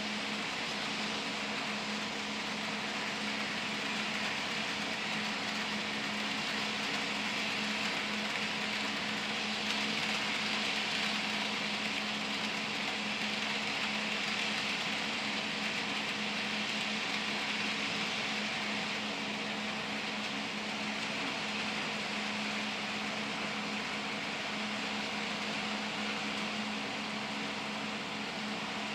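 HO scale model freight train rolling past on its track: a light rolling whir of wheels and the Proto 1000 NW-2's small motor that swells around the middle as the cars go by. A steady hum and fan-like hiss lie underneath.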